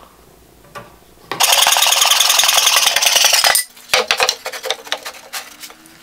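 Hand saw cutting through a wooden strip, a fast, dense rasping that starts a little over a second in and runs for about two seconds, followed by a few scattered knocks.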